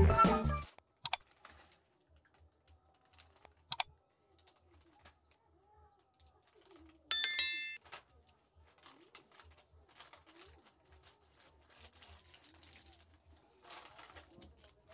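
Music cuts off just after the start, leaving quiet with faint rustling and a couple of clicks as plastic snack packets are cut open with scissors. About seven seconds in comes a single bright, bell-like metallic ding that fades within a second.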